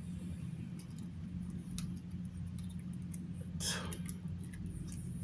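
Light clicks and one brief scrape, about three and a half seconds in, as a plastic flexible mini tripod is handled and its legs bent, over a steady low hum.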